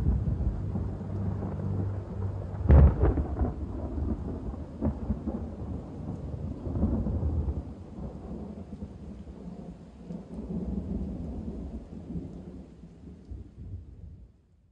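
Thunderstorm: low rolling thunder over rain, with one sharp thunderclap about three seconds in, the loudest moment. The rumble then dies away and fades out at the end.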